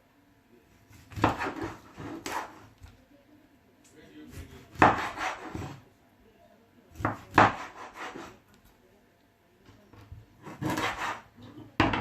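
Knife cutting through a frozen fish against a chopping board, in four bursts of strokes a few seconds apart.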